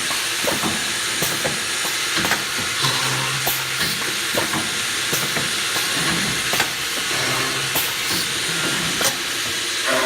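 CNC drilling machine running: a steady hiss with frequent sharp clicks and a low hum that comes and goes.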